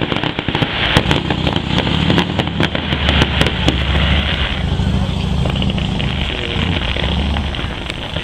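Fireworks going off in rapid succession: dense crackling with many sharp pops over a steady low rumble.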